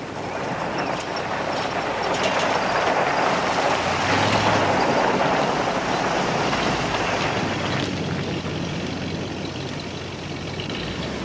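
1965 Chevrolet Corvette Sting Ray driving past, its V8 engine and tyre noise a steady rush that swells to its loudest about four to five seconds in, then eases off.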